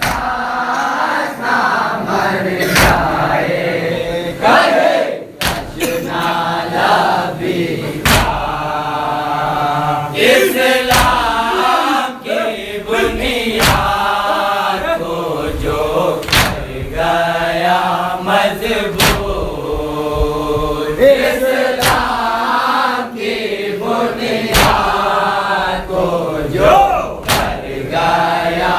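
Group of men chanting an Urdu noha (elegy) in unison, with sharp chest-beating strikes (matam) landing together about every two and a half seconds.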